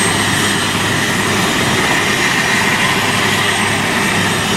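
Super Puma helicopter's twin turbine engines and rotor running steadily at a loud, even level, with a constant high whine over the rush.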